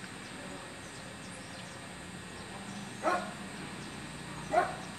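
A dog barking twice, short barks about a second and a half apart.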